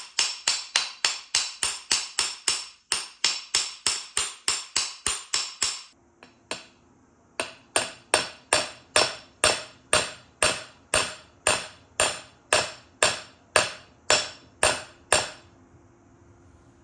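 Hammer tapping a bearing down into its bore in a Bush Hog RZ60 rotary cutter gearbox housing. A fast, even run of sharp taps, about three or four a second, goes on for some six seconds. After a brief pause a slower, steady series follows at about two a second, stopping a little before the end.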